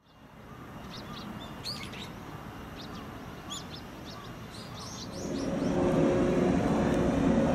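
Small birds chirping in short, quick calls over light background noise for about five seconds. Then a louder steady hum with several held tones takes over: a yellow JR West 115-series electric train at a station platform.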